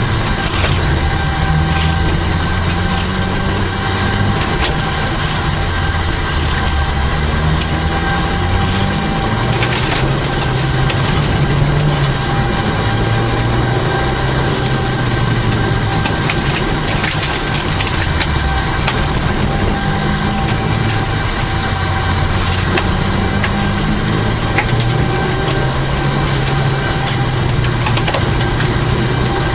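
A 1989 Toyota Celica GT4 rally car's turbocharged four-cylinder engine at full effort on a special stage, heard from inside the car. The revs climb and drop again and again through gear changes, over a constant loud rush of road and tyre noise, with a few sharp knocks from the car hitting bumps or stones.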